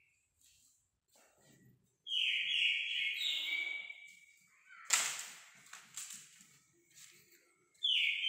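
A bird singing in short phrases of rapid repeated notes, each lasting a second or two: one about two seconds in, another just after, and one near the end. A single sharp knock about five seconds in.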